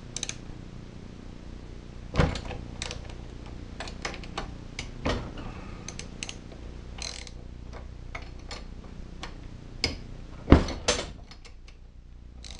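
Ratchet wrench with a half-inch socket working the cylinder head bolts loose on a Tecumseh small engine. It makes irregular clicks and clinks, with a few sharper metal knocks, the loudest about ten and a half seconds in.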